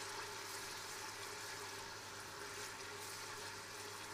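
Green ginger-and-garlic paste sizzling steadily in hot vegetable oil in a stainless steel stock pot as it is stirred, frying on a high heat to cook off its raw smell.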